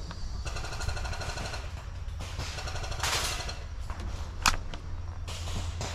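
Full-auto airsoft gunfire, a fast rattle of shots starting about half a second in and lasting just over a second, then a shorter burst soon after. About four and a half seconds in there is a single sharp airsoft shot, the loudest sound.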